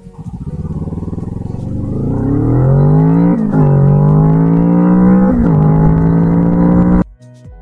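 Kawasaki Z650 parallel-twin with an Ixil aftermarket exhaust, accelerating hard from a standstill at full throttle. The engine note climbs steadily and drops twice with quick upshifts, about three and a half and five and a half seconds in. The sound cuts off suddenly near the end.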